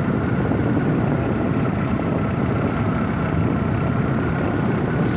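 Steady engine and road noise of a moving vehicle, heard from on board.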